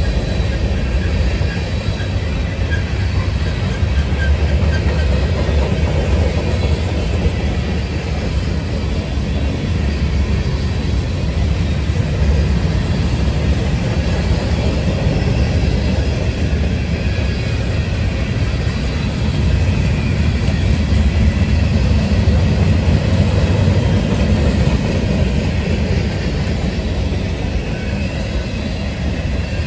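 Freight cars of a passing mixed freight train (covered hoppers, tank cars, gondolas, boxcars) rolling along the rails: a steady rumble of steel wheels on track.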